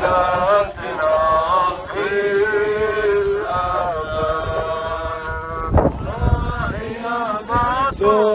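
Arabic hymn to the Virgin Mary sung as a slow chant, with long held notes that slide between pitches. A brief rush of noise cuts across the singing about six seconds in.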